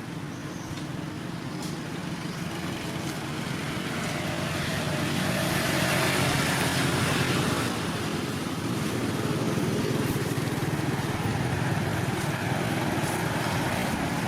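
Motor vehicle engine and road noise, growing louder over the first six seconds and then holding steady.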